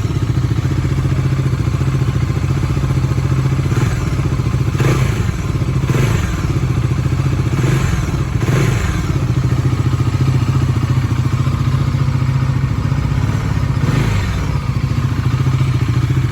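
Bajaj Dominar 400's single-cylinder engine running through its stock exhaust with a deep sound, blipped on the throttle several times between about four and nine seconds in and once more near the end.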